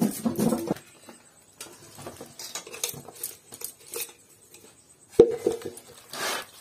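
Metal cookware clanking and scraping as thick, oily chilli pickle is tipped out of an aluminium pot and a bowl onto a bamboo winnowing tray, with a steel spoon scraping and tapping through it. A single sharp metal clank about five seconds in is the loudest moment.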